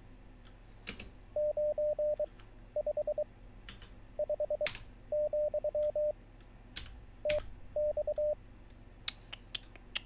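Computer-generated Morse code at 23 words per minute: groups of short and long beeps, each group one character, with pauses between them. Keyboard keys are tapped between the characters as the answers are typed, with a quick run of key clicks near the end.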